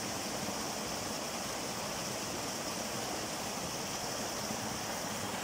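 Small cascade of a mountain stream: water spilling over a rock ledge into a frothy pool, a steady rush of falling water.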